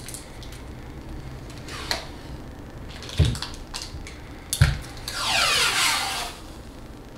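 Kapton tape being pulled off its roll with a ripping screech lasting about a second near the end. Before it come two sharp thumps a little over a second apart.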